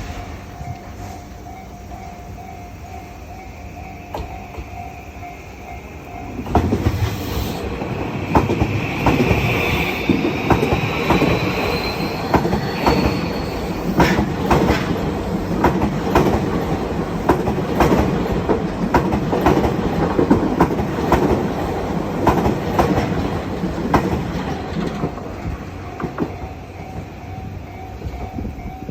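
Level crossing warning bell ringing in steady repeated dings. About six seconds in, a Tokyu 2020 series electric train passes, its wheels clacking rapidly over the rail joints with a rising whine. The train fades near the end and the bell is heard again.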